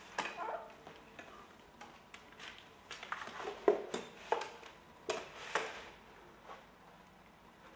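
Irregular knocks, taps and rustles from handling the automatic membrane welding machine and the plastic sheet as they are set in place, loudest and busiest in the middle stretch.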